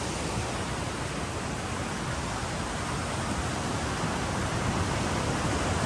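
Waterfall rushing: a steady, even hiss and rumble of falling water that grows slightly louder toward the end.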